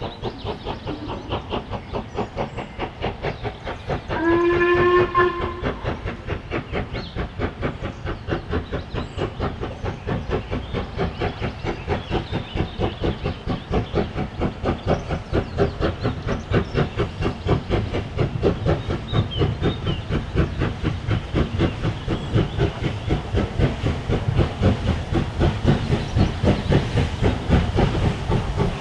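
Steam locomotive working hard with rapid, even exhaust beats that grow louder as it approaches. About four seconds in it gives one steady whistle blast lasting about a second and a half.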